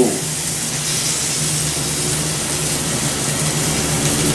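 Pork and chicken sizzling steadily on a Stone-Ware electric grill, with a steady low hum underneath.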